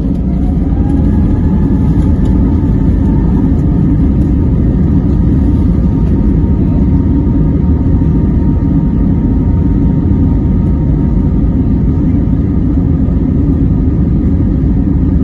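Airbus A320neo's CFM LEAP-1A engines running at taxi power, heard inside the cabin as a steady low rumble with a faint whine that rises slightly about two seconds in.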